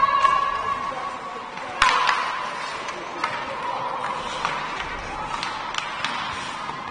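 Ice hockey play: sharp clacks of sticks and puck striking the ice and boards, a few scattered knocks with the loudest about two seconds in, over voices calling out in the rink.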